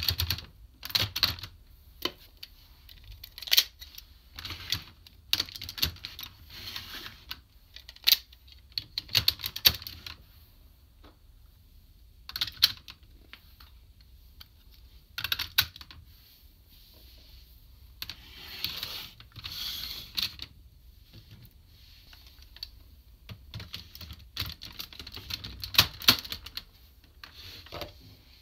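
Hard plastic parts of a DX Kerberios combining robot toy being handled and snapped together: irregular sharp clicks and clacks, with a few short pauses and a softer scraping rustle about two-thirds of the way through.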